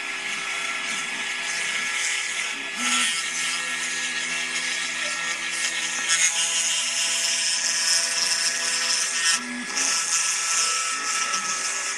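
Kit-built CPC-RC55 CNC carving machine cutting wood: the spindle whines steadily while the bit hisses through the wood. The tone of the motors and the cutting noise shift as the tool changes moves, at about 3 and 6 seconds in, with a brief drop about 9.5 seconds in.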